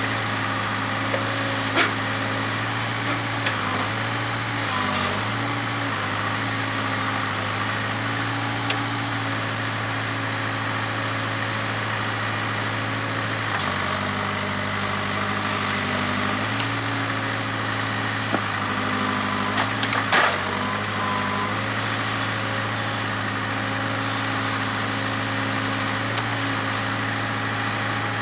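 Case 580K backhoe's four-cylinder diesel engine running steadily while digging, its pitch dropping and picking back up a few times under hydraulic load. A few short knocks from the working machine, the loudest about twenty seconds in.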